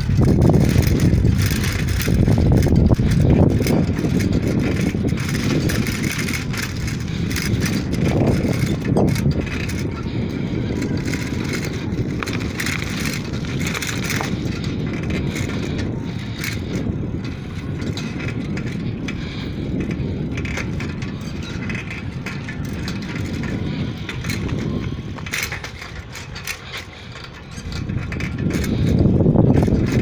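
Wind rumbling on the microphone of a phone carried on a moving bicycle, with light rattling clicks. It eases briefly near the end.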